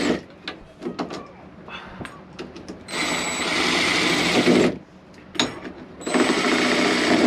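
Cordless drill driving screws for a doorknob in short bursts of about two seconds, with small clicks and handling noise between the bursts.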